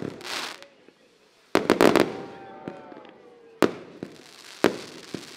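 Fireworks going off: a quick cluster of sharp cracks about a second and a half in, a falling whistle, then single bangs about a second apart.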